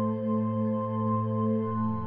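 Background ambient music: a slow, sustained chord of held tones with a bell-like ring, moving to a new chord near the end.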